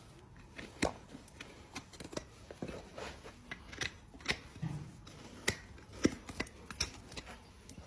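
Farrier's cutting tools trimming a horse's hoof horn: a series of irregular sharp snips and clicks, a few a second, some louder than others.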